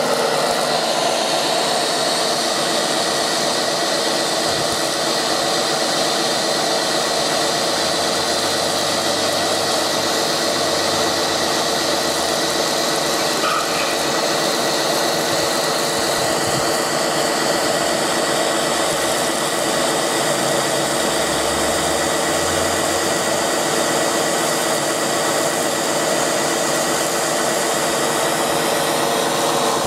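Small electric water pump of a model RC fire truck running steadily, a whine of several steady tones over the hiss of the foam jet from its roof monitor.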